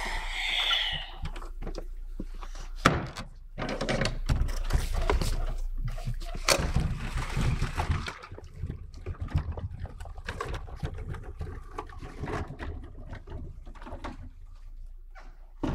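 Stage handling noise: heavy cloth rustling and irregular knocks and scrapes as a wooden crate is moved about, with a sharp knock about three seconds in.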